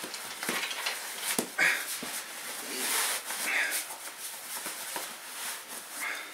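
Sleeping bag and its fabric stuff sack rustling and swishing as the bag is pressed down by hand and the sack is cinched shut.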